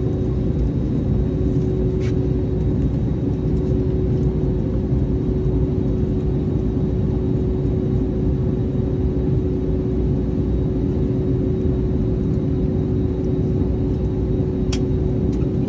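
Jet airliner engines heard inside the passenger cabin during takeoff: a loud, steady rumble with a constant hum tone running through it. Two faint clicks, about two seconds in and near the end.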